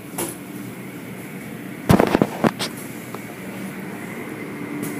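Automatic car wash machinery running with a steady hum, heard from inside the car. About two seconds in, a quick cluster of sharp slaps and knocks from the wash's cloth strips and brushes hitting the car body.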